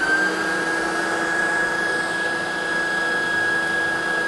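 Electric stand mixer running at a steady speed with a high motor whine, its beaters whipping egg whites and sugar to stiff peaks.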